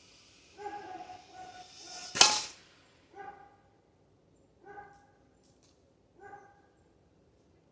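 A single air rifle shot about two seconds in, the loudest sound, amid a dog barking: a few barks just before the shot, then three single barks about a second and a half apart.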